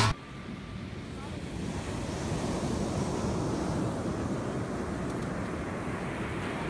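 Ocean surf washing on a beach, with wind blowing across the microphone.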